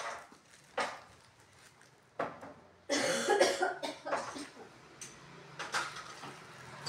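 Small objects being handled and set down on cupboard shelves: a few separate sharp clicks and knocks, with a louder rough stretch of noise lasting about a second around three seconds in.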